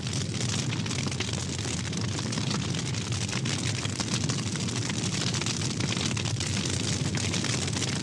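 Sound effect of a forest fire burning: a steady rushing noise full of dense crackling.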